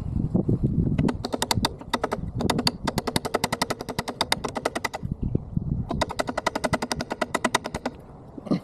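Rapid run of sharp metal-on-metal strikes, about ten a second in the fourfold sped-up footage, with a pause about five seconds in before a second run: hammer blows on metal.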